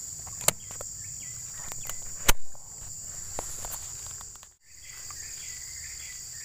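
Steady high-pitched chorus of insects droning. A sharp click about half a second in and a louder knock a little after two seconds stand out. The sound drops out completely for a moment past the middle.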